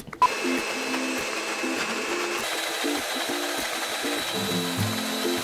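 Countertop blender running steadily, blending a red sauce; its thin whine steps up in pitch about halfway through.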